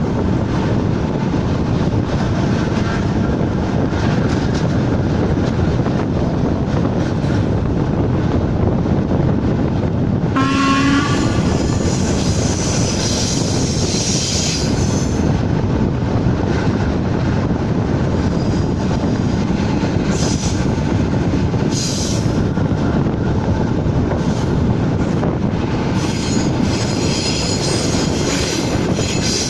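ČD class 460 electric multiple unit running along the track with steady running noise, a brief horn note about ten seconds in, and high-pitched wheel squeal at times.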